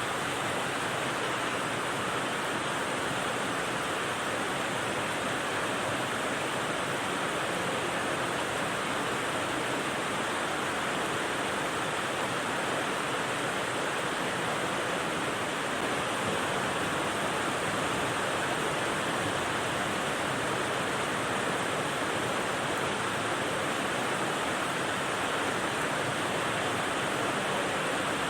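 Rain white noise for sleep: a steady, even rushing hiss with no separate drops, pauses or changes.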